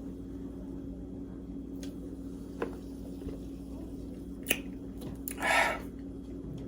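A person gulping soda from a bottle: soft wet mouth and swallowing sounds with a few sharp clicks, and a short noisy rush about five and a half seconds in, over a steady low hum.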